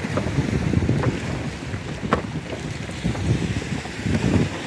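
Wind buffeting the microphone, with sea water moving under a floating plastic walkway and a few sharp knocks, the clearest about two seconds in.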